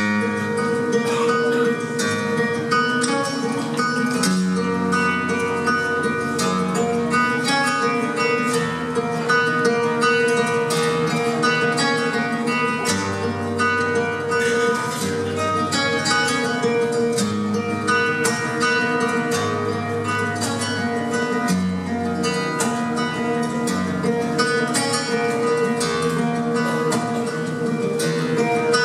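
Two nylon-string flamenco guitars playing a duet live: fast plucked melody over moving bass notes, with a steady held note sounding underneath.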